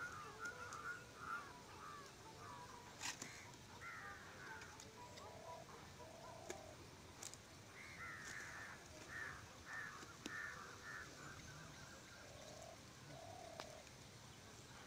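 Faint calls of wild birds: several short series of quick chirping notes, with a few lower calls between them. A few soft clicks come through now and then.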